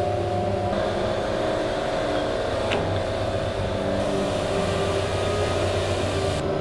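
Motor-driven groove rolling mill running with a steady hum, drawing a gold rod through its grooved steel rollers; a brief click about three seconds in.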